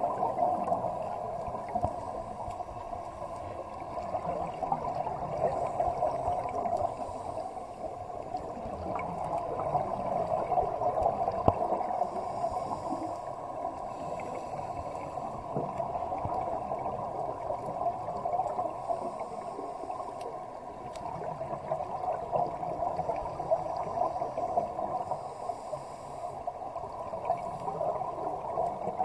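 Underwater ambience of scuba divers' exhaled bubbles gurgling from their regulators, a steady bubbling that swells and fades every few seconds.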